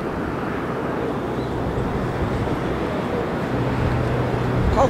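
Boeing 747-8 Freighter on landing approach, its four GEnx-2B turbofan engines making a steady broad jet rumble that slowly grows louder. A low steady hum joins in about three and a half seconds in.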